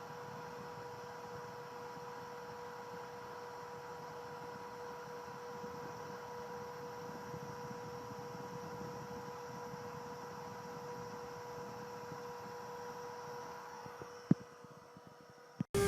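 CNC router spindle running steadily: an even electric hum with a high held tone. Near the end it fades, and there is a single sharp click.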